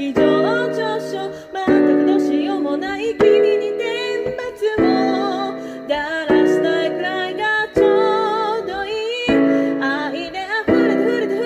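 A woman singing while accompanying herself on an electric keyboard with a piano sound, chords struck about every second and a half under the sung melody.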